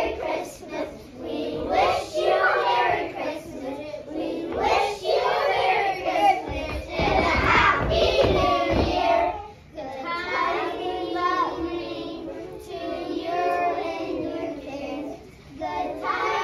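Children singing a song in phrases of a second or two, with a brief low rumble about seven seconds in.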